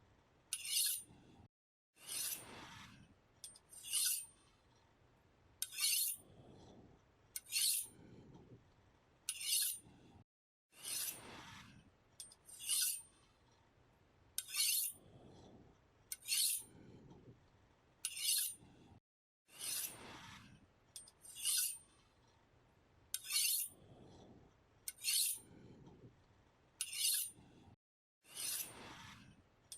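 A knife being sharpened: repeated scraping strokes of the blade, about one a second. Short bright strokes alternate with longer ones.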